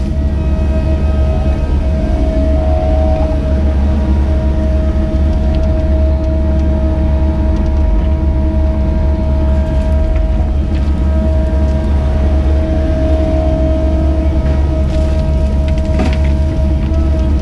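Caterpillar 307E2 mini excavator's diesel engine running under work, heard from inside the cab: a steady low drone with a constant whine over it. A couple of sharp knocks come near the end.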